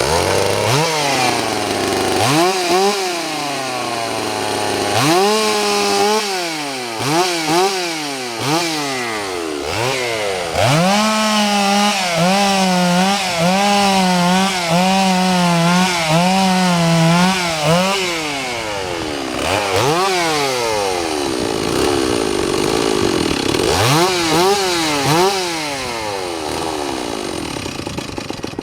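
Stihl 028 AV Super two-stroke chainsaw running and revved with the throttle over and over, its pitch climbing and falling with each blip. Through the middle it is held at high revs for several seconds with a slight waver, and it drops back to a lower idle between revs.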